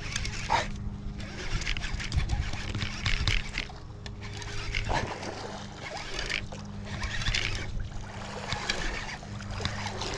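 Small boat on the water: a steady low hum with water splashing and sloshing on and off.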